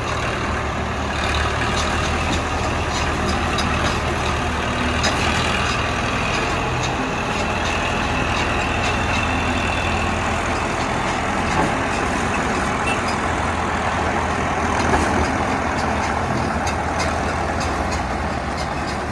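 A heavy engine runs steadily with a strong low hum, and short clicks and knocks scattered through it. This is typical of road-works machinery or a truck at the site.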